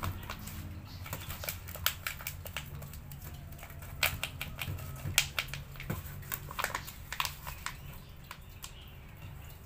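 Hands working a thin black plastic plant pot and potting soil during repotting: irregular crackling clicks and rustles as the pot is gripped and tipped out, thinning near the end.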